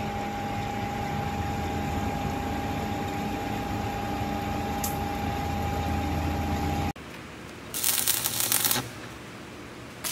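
Steady machine hum with a steady high tone in a steel shop. After a sudden change about seven seconds in, a tack weld is struck: a wire-feed arc welder crackles for about a second, then stops.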